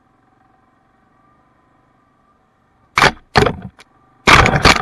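Faint, muffled steady hum of the Yamaha Kodiak 700 ATV's single-cylinder engine, broken about three seconds in by four loud, rough bursts of noise from the mounted camera being knocked and brushed on the rough trail. The last burst is the longest, about half a second.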